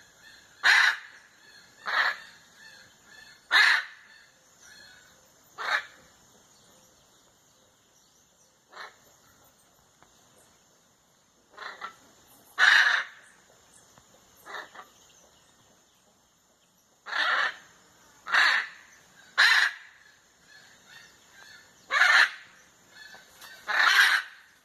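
Macaws squawking: about fifteen short, loud calls at irregular intervals, with a lull of several seconds around the middle.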